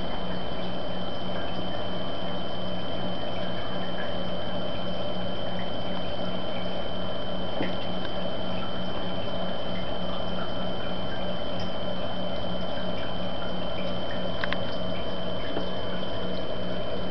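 Steady trickling water sound of an aquarium's water circulation, with a constant high whine and a low hum, and a couple of small ticks near the end.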